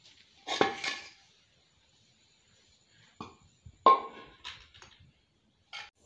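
Heavy stone roller of a traditional stone grinder knocking and scraping in its stone mortar while grinding boiled jackfruit seeds with jaggery: a few separate knocks, the loudest about four seconds in.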